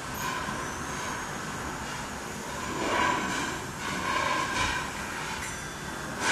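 Free-improvised experimental noise performance: a dense, grainy drone of rubbing and scraping textures that swells louder twice in the middle and again at the end, with a faint high tone slowly rising through the first few seconds.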